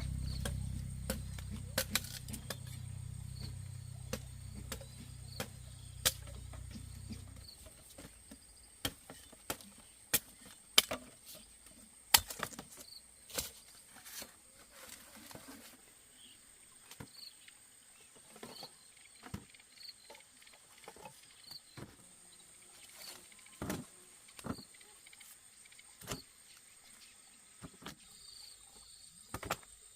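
Scattered sharp cracks and snaps at irregular intervals over a steady high insect buzz; a low rumble fades away in the first several seconds.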